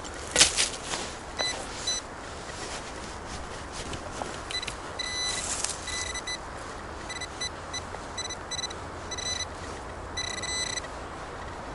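Metal detector sounding its target tone: many short, high beeps coming in irregular groups, as the coil picks up a buried metal target. A brief rustle comes at the start.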